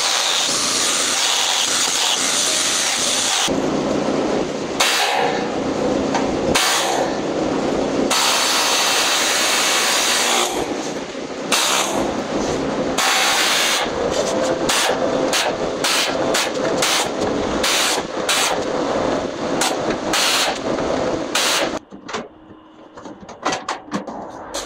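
Power-tool noise: a steady harsh hiss for the first few seconds, a sudden change in the tool sound, then from about halfway many short bursts that start and stop sharply, thinning out near the end.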